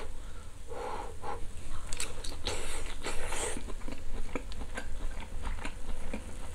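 A person chewing a mouthful of grilled pork, with many small wet mouth clicks, and a breathy hiss of air about two to three and a half seconds in.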